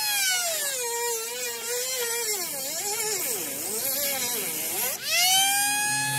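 Dremel rotary tool running with a high motor whine. Its pitch slides down, then wavers up and down several times as the speed changes. It drops out briefly about five seconds in and spins straight back up to a high pitch.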